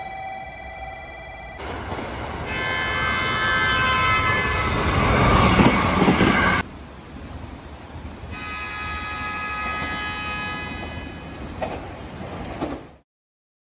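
JR Kyushu 787 series electric train sounding its horn, a steady many-toned chord, in three separate blasts: one at the start, one over the loud rumble of the train passing close by, and one near the end. The sound cuts off abruptly near the end.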